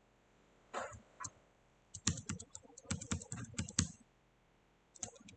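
Typing on a computer keyboard: a couple of single key clicks, then a quick run of about a dozen clicks in the middle, and a few more near the end.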